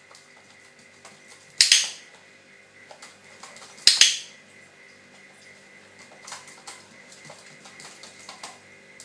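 Hand-held dog-training clicker clicked twice, about two seconds apart, each a sharp click-clack, marking the puppy's correct pivot on its perch. Light scattered taps in between.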